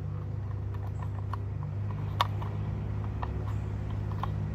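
Several small, sharp plastic clicks and taps as a bulb socket is handled and fitted back into a truck's cargo light housing, the loudest about two seconds in, over a steady low hum.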